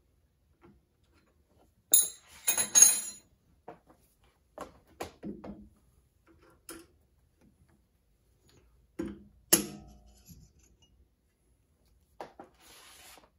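Intermittent light metallic clinks and rattles of small metal parts and aluminium drilling chips being handled on a milling machine's steel table. The loudest clatter comes about two to three seconds in, with a sharp clink about nine and a half seconds in.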